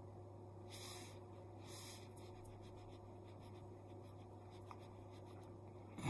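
Near silence: room tone with a steady low hum, broken by two brief soft hisses about one and two seconds in.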